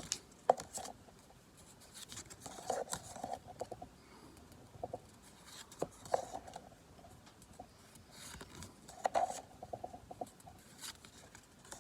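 Pokémon trading cards being handled and flipped through: card stock sliding and flicking against itself in short rustles and soft clicks at irregular intervals.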